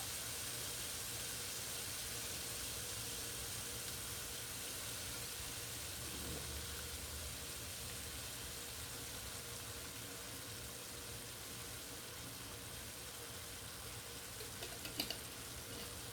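Chicken pieces sizzling in a hot frying pan: a steady hiss that slowly dies down, with a few light clicks near the end.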